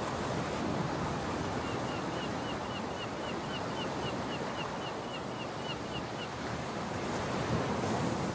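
Steady rush of waves and wind on open water, with a bird calling a quick run of short, high chirps, about four a second, through the middle.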